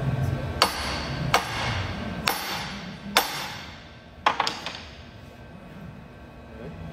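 A hammer knocking on the gland of a hydraulic cylinder as it is seated into the barrel during reassembly: five sharp metallic strikes about a second apart, each with a short ring, followed by a couple of lighter taps.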